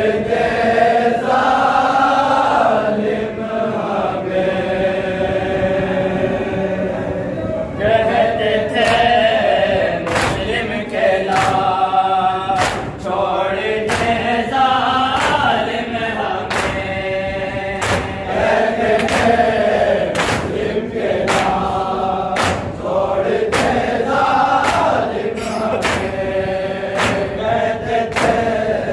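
Men's group singing a noha, a Shia lament, in unison. From about eight seconds in, rhythmic matam chest-beating strikes join in at just under one a second.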